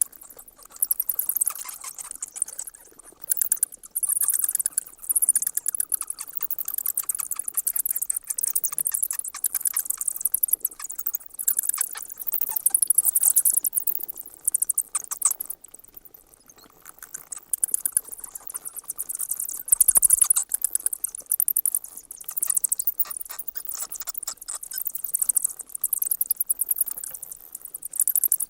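Bats chittering: rapid, very high-pitched clicks and squeaks in bursts, with short lulls between them.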